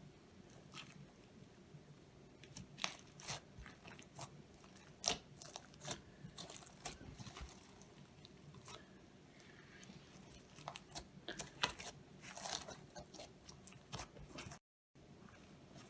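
Slime being stretched and squeezed by hand: irregular soft crackles and clicking pops, coming in clusters, with the sound cutting out briefly near the end.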